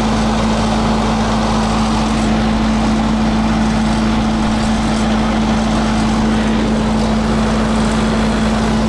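Tractor engine running at a steady speed, with an even hum that does not change.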